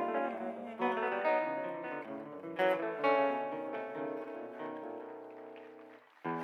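A live band plays the closing chords of a song, led by guitar: a few strummed chords, then a final chord left to ring and fade out. It cuts off abruptly near the end.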